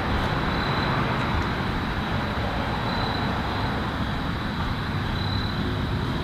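Steady background noise of road traffic, an even roar with no distinct events, with a faint high-pitched tone running through it.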